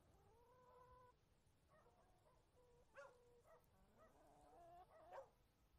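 An animal's faint calls: a series of short pitched cries, one gliding upward in pitch about four seconds in.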